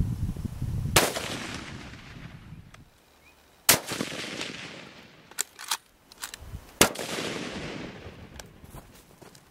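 Hunting rifle shots: three loud cracks, about a second in, near four seconds and near seven seconds, each followed by a long echo rolling away. A few fainter sharp clicks come between them.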